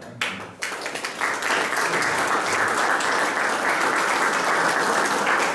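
Audience applauding at the close of a talk, beginning just after the final thanks and swelling to full, steady clapping about a second in.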